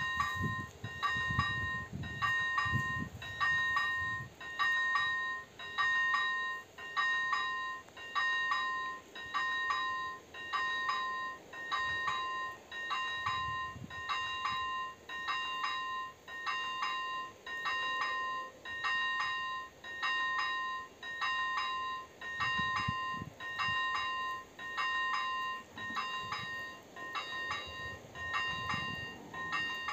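Czech railway level crossing's electronic warning bell ringing steadily, about one ding a second, while the AŽD 97 signals flash red to warn of an approaching train.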